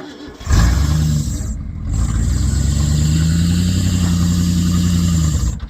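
Old Ford F-150 pickup's engine running hard under load as it pulls a dead backhoe, its pitch climbing a little and then holding steady, stopping abruptly near the end.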